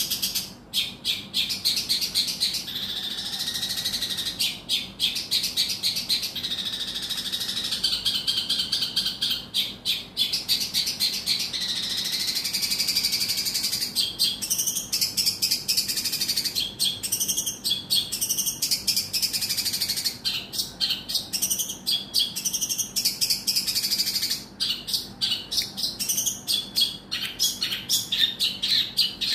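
Long-tailed shrike (cendet) singing a long, continuous high song: runs of rapid chattering notes mixed with held whistled phrases, with a few short breaks.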